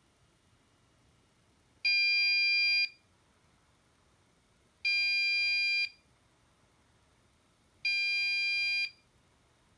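QNAP TS-453B NAS's buzzer beeping three times, each beep a steady high tone about a second long, about three seconds apart.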